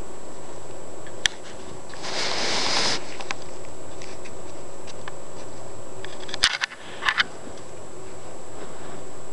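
Handling noise on the recording device: a sharp click, about a second of rustling, then a cluster of clicks and knocks about six and a half seconds in.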